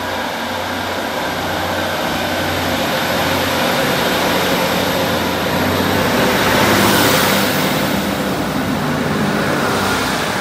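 Class 156 diesel multiple unit running along the platform: a steady low diesel engine drone, swelling louder about six to eight seconds in as the cars pass close, with wheel-on-rail noise, then easing off.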